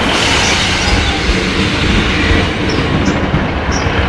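A train running past at close range, its wheels rolling over the rails in a steady loud rumble, with a few short high squeals in the second half.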